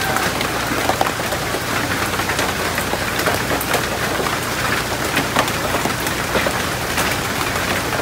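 Steady rain falling on palm fronds and broad leaves, an even wash of noise with many separate drop hits close by.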